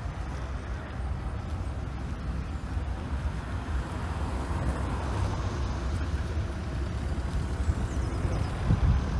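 Street ambience: a car passes close by about midway, over a low wind rumble on the microphone.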